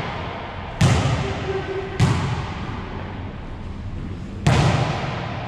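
A wallyball in play: three sharp slaps of the ball, about a second in, at two seconds and near the end. Each rings briefly off the walls of the enclosed court.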